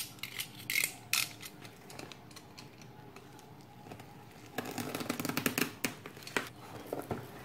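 Bubble wrap and packing tape being cut and torn off a cardboard parcel: a few sharp clicks about a second in, then a dense crackling rustle of plastic near the end.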